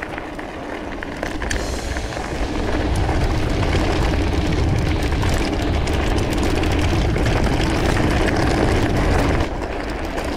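Mountain bike rolling over rough trail: a steady rumble of tyres and rattling bike with wind noise on the camera's microphone, growing louder about two seconds in and easing near the end.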